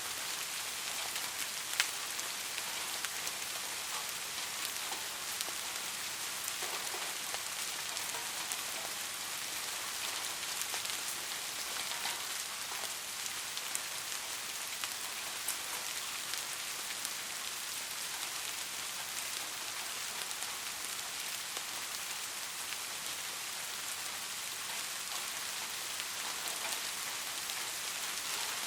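Steady soft rain falling on a surface, an even hiss dotted with the ticks of individual drops, one sharper drop tick about two seconds in.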